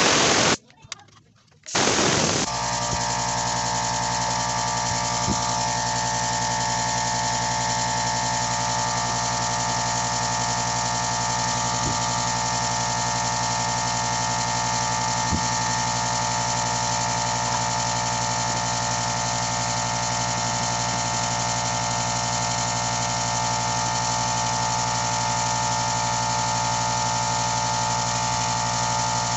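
Air compressor: two short loud bursts of noise in the first couple of seconds, then its motor and pump start and run steadily with an even whine, refilling the tank after air was let out, working toward the 100 psi cut-out.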